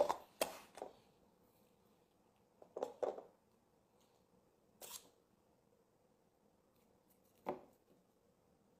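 Faint light taps and clicks of disposable cups being set down and shuffled on a tabletop, several in the first second and a few spaced out after, then one last knock near the end as a cat's paw swats a cup aside.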